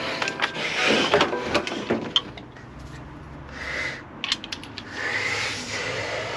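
Hand tools working on the nuts of a motorcycle's rear sprocket: scattered metal clicks and a few spells of scraping and rubbing.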